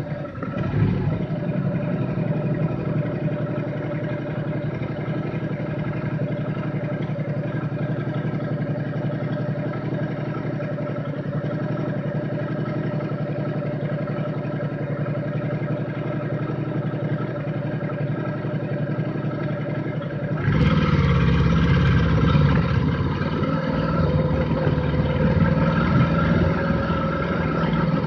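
Motorcycle engine running steadily. About twenty seconds in, the sound turns suddenly louder, with a heavier low rumble.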